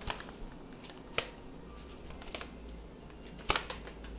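Handling noise from a toy figure and camera being moved about: four short sharp clicks and taps about a second apart, the loudest about a second in and near the end, over a faint low hum.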